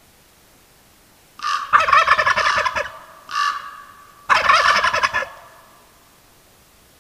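Wild turkey gobblers gobbling: two loud, rattling gobbles about two and a half seconds apart, with a shorter, fainter call between them.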